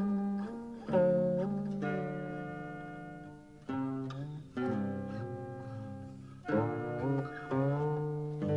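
Instrumental background music on plucked strings. Notes are struck in clusters and left to ring and fade, and a few slide in pitch.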